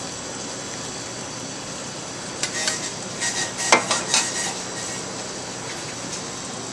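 A few light clinks and knocks of a metal pot against dishes, starting about two and a half seconds in and lasting about two seconds, the sharpest near the middle, over a steady background hiss.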